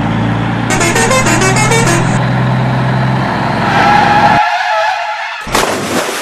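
Truck engine sound effect running steadily, with a wavering tyre-skid screech, then cutting off for a sudden splash as a toy dump truck tips over into a muddy water-filled pit.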